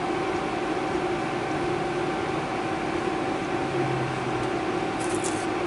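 Steady hum with a constant whine from a powered-up Haas CNC lathe while its tool is hand-jogged toward the stock, with a few faint clicks near the end.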